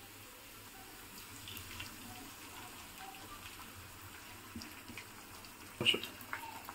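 Faint, steady sizzle of eggs frying with onions in oil in a pan. A single sharp knock comes about six seconds in.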